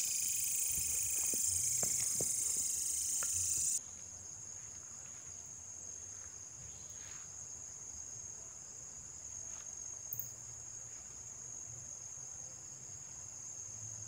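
Chorus of crickets and other night insects: a dense, high-pitched trilling in several layers that drops abruptly about four seconds in to a quieter, single steady high buzz. A few faint clicks sound in the first few seconds.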